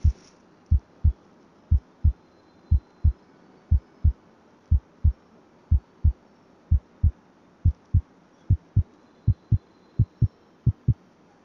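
Heartbeat, a low double thump (lub-dub) about once a second, quickening over the last few seconds.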